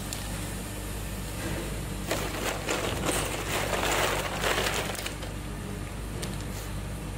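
A plastic scoop digging through a pile of solid tube ice in a plastic tub, the ice pieces clattering and crunching against each other. This happens in a burst from about two to five seconds in, loudest near the end of it.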